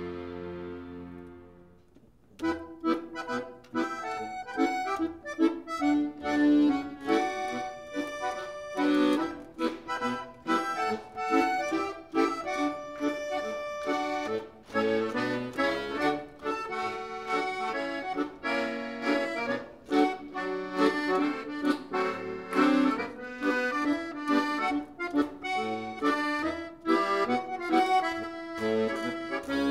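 Piano accordion playing solo: a held chord dies away over the first two seconds, then after a brief pause a lively tune of quick, short notes starts and carries on.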